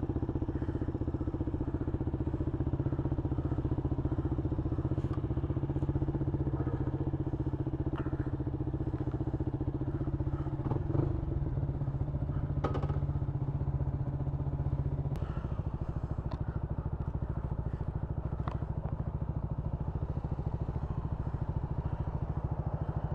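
Motorcycle engine running steadily. About two-thirds of the way through its note changes and gets a little quieter, with a few light knocks shortly before.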